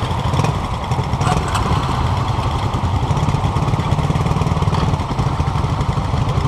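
Several small motorcycle engines idling together, just started, with a steady fast patter of firing pulses.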